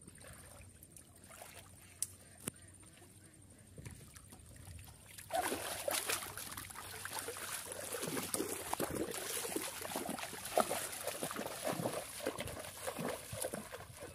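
Shallow river water sloshing and splashing in an irregular run of strokes from about five seconds in, as someone wades through it.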